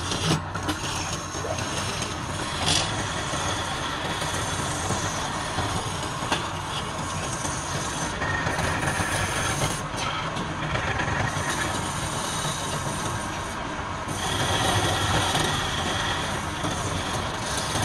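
Wood lathe running with a turning tool cutting into the spinning wood: a steady rough noise whose higher tones shift as the cut changes.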